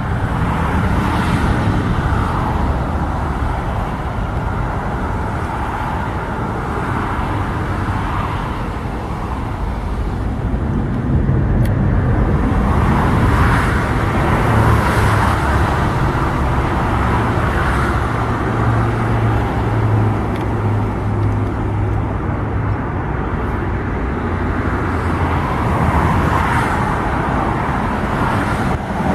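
Jet engines of a Boeing 737-800 on final approach to land, a steady rumble that grows a little louder about a third of the way in.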